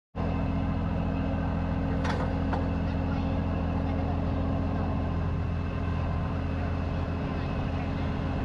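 Heavy diesel truck engine idling steadily, heard from under the dump trailer, with a couple of brief clicks about two seconds in.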